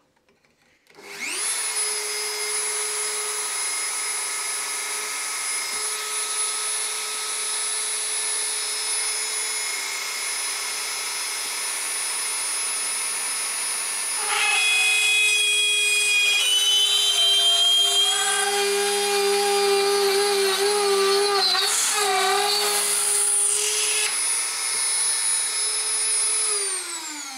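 Dremel 4000 rotary tool in its drill press stand starting up about a second in and running with a steady high whine. From about halfway it grows louder with wavering squealing tones as the 2.5 mm bit is fed down into the heatsink, drilling a hole for an M3 tap. Near the end the motor is switched off and its pitch falls as it winds down.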